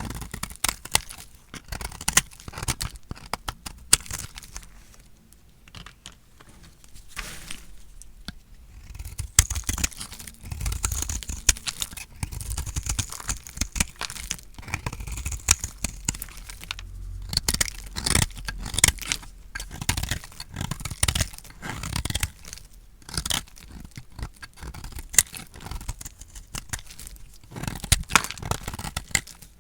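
A blade cutting dry soap: a long run of crisp, irregular crunches and crackles as the bar is sliced and pieces break off, easing off for a few seconds about a quarter of the way through.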